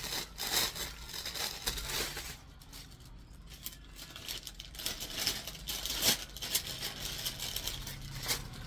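Clothes being handled and pulled out, rustling and crinkling, with a quieter stretch a couple of seconds in.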